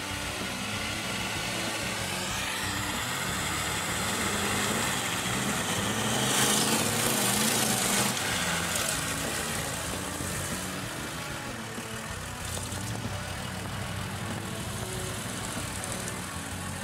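Off-road 4x4 engine revving as it climbs a sandy slope, its pitch rising in the first few seconds. About six seconds in there is a loud rush of noise for roughly two seconds, with the tyres spinning and throwing sand.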